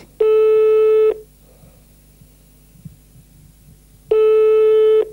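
Telephone ringback tone on the line: a steady beep of just under a second, heard twice about four seconds apart, meaning the called number is ringing and not yet answered.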